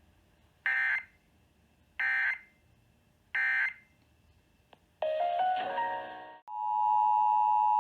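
Emergency Alert System broadcast tones. Three short bursts of SAME end-of-message data tones come about a second and a quarter apart. About five seconds in there is a second of stepping, changing tones, and then the steady two-tone EAS attention signal starts and keeps going.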